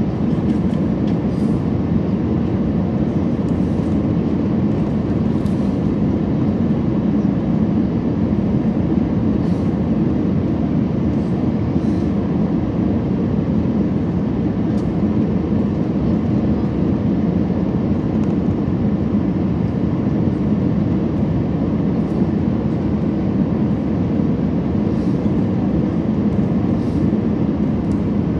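Steady low roar of an Airbus A320's jet engines and airflow, heard inside the passenger cabin during the descent to landing.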